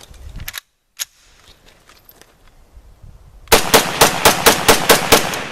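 A rapid string of about ten sharp bangs, some six a second, starting about three and a half seconds in and followed by a trailing hiss, like a burst of automatic gunfire.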